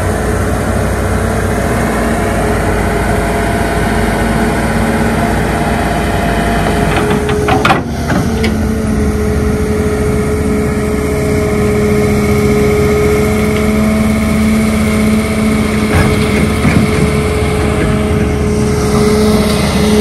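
Diesel engine of heavy earthmoving machinery running steadily at a held pitch. A short burst of knocks and clatter comes about eight seconds in.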